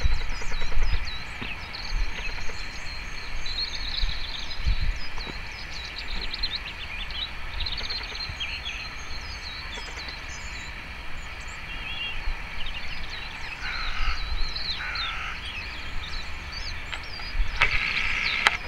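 European robin singing quietly to itself: a rambling run of thin, high, quick twitters and short slurred notes, over a low rumble.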